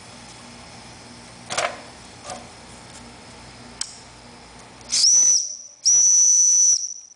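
Model steam engine's whistle blowing twice on steam from its boiler, a short high toot about five seconds in and then a longer one. Before that there is a faint steady hiss with a few sharp clicks.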